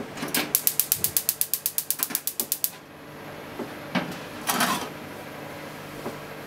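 Gas stove burner's spark igniter clicking rapidly, about nine clicks a second for some two seconds. About four seconds in there is a single click, then a brief rushing sound.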